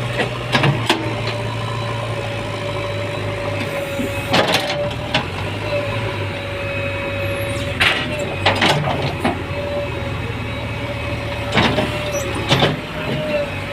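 Heavy diesel earthmoving machinery running steadily, with a steady whine and about six sharp metallic clanks.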